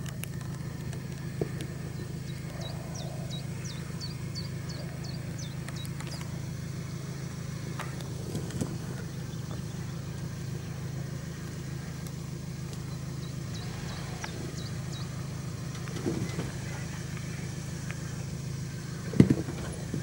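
Toyota Land Cruiser's engine running steadily at low revs as the truck crawls down a rocky, rutted track, with occasional knocks from the tyres and suspension dropping over rocks; the loudest knock comes near the end.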